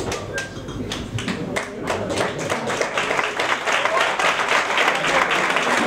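Audience applause: scattered individual claps that build within about two seconds into dense, steady clapping.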